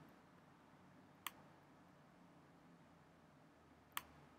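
Near silence broken by two single sharp computer-mouse clicks, one a little over a second in and one near the end.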